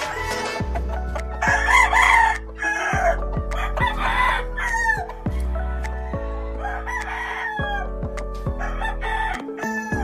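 A rooster crowing, loudest about two seconds in, over background music.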